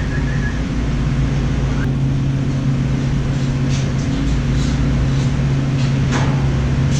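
Farm vehicle's engine running steadily at a constant speed, with a short falling squeal about six seconds in.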